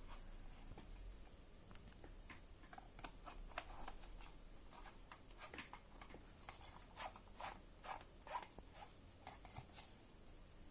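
Faint plastic clicks and scraping from a gas mask and its filter canister being handled, the filter threads turned in a series of short, uneven clicks.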